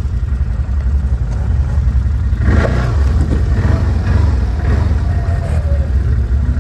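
ATV engine running under a steady low rumble, rising into a louder stretch of revving from about two and a half seconds in.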